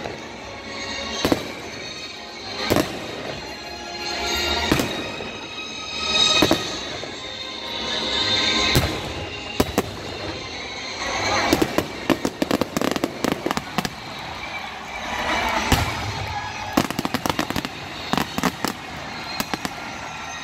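Aerial firework shells bursting overhead, each a sharp bang. For the first half they come one every second or two. From about halfway in they come in rapid, dense volleys. Music plays underneath the bangs.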